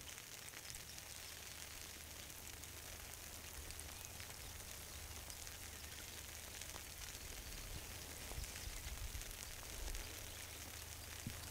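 Faint, steady hiss of light rain falling, with a low rumble underneath.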